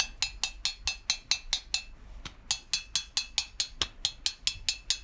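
Bare piston, without rings, rocked by hand inside an aftermarket RMS two-stroke moped cylinder, clicking metal on metal about four or five times a second, with a short pause about two seconds in. The clicking is the sign of play between the non-original piston and the cylinder bore.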